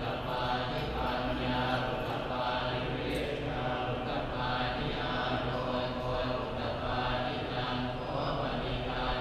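A group of Theravada Buddhist monks chanting together in a low, steady monotone.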